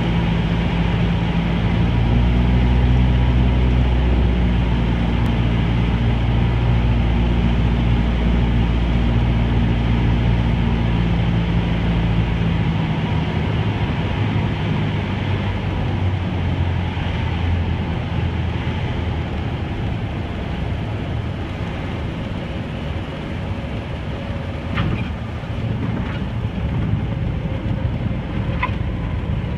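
Cessna 172's engine and propeller heard from inside the cabin over wind noise. The steady engine note drops away about twelve seconds in as power comes back for the landing, leaving wind and rolling noise. A few sharp clicks come near the end.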